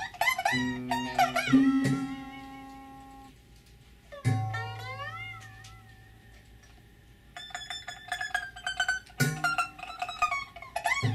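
Improvised acoustic music: sharp plucked, twanging notes whose pitch bends up and down, with a low note ringing on about four seconds in. A quieter stretch follows, and dense plucking resumes about seven seconds in.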